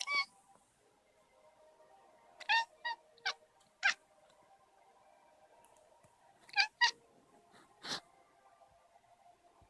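Domestic cat making short, weird meows: one near the start, a quick run of four around three seconds in, and three more a few seconds later. The cat makes these sounds when a moving light reflection on the wall catches its attention.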